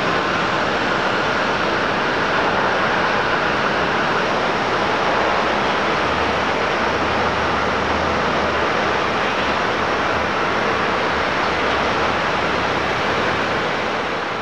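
Jet engines of a Boeing 767-300ER airliner making a steady, loud rush as it rolls out along the runway after landing. A higher whine within the noise eases after the first few seconds.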